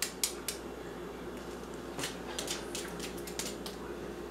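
Butt of a knife tapping the shell of a hard-boiled egg to crack a circle in it: three quick sharp taps at the start, then a run of fainter taps and shell clicks, over a steady low hum.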